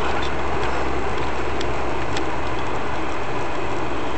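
Steady engine and road noise of a moving vehicle, with a low hum and a few faint, irregular clicks.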